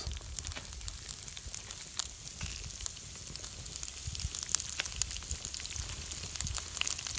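Sliced onions dropped into hot oil and sizzling in a nonstick frying pan, with cumin seeds crackling. A steady hiss with frequent small pops and crackles throughout.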